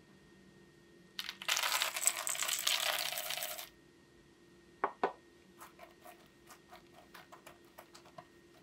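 Small dry pieces poured into a bowl in a rattling rush of about two and a half seconds. Two sharp taps follow, then a run of light clicks as the last bits are shaken or picked out.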